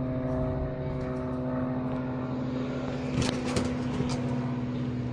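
A steady engine drone holding one low pitch with a constant hum. About three seconds in come a few quick scratches and knocks: a cat's claws on wooden fence boards as it climbs the fence.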